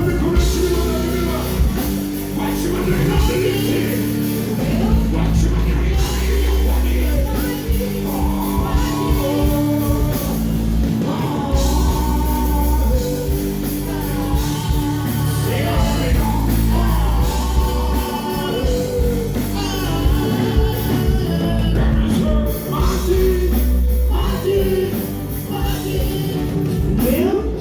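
Loud music through a concert sound system, with a singing voice over a heavy bass line.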